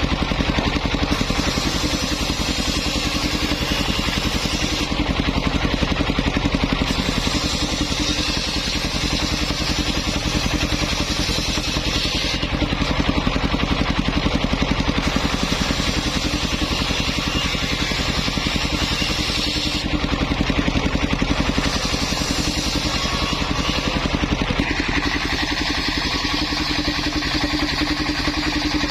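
Engine-driven homemade circular saw ripping waru wood. The engine runs steadily under load, and the hiss of the blade cutting comes in passes several seconds long with short breaks between them.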